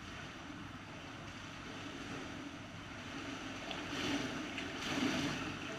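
Swimming-pool water lapping and sloshing around a camera held at the water's surface, growing louder about four seconds in as a swimmer moves up to it.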